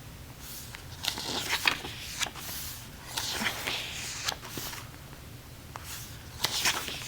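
Plastic crinkling and rustling in irregular swishes, with a few sharp clicks near the end, as photocards and their packaging are handled.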